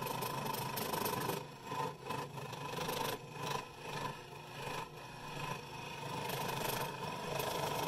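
Variable-speed scroll saw running, its thin blade cutting through a board of scrap oak, with the level dipping briefly several times during the cut.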